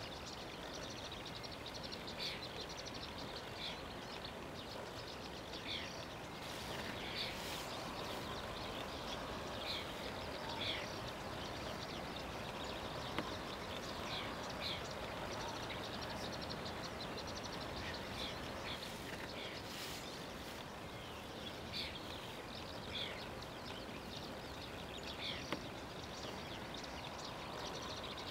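Steady background noise with many short bird calls and chirps scattered throughout.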